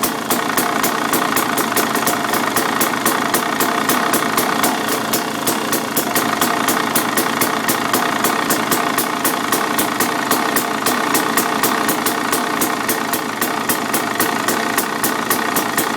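2013 KTM 300 EXC single-cylinder two-stroke engine idling with a rattling clutch noise and an even ticking about four or five times a second. The owner takes it for a bad clutch noise, though he has been told it is normal.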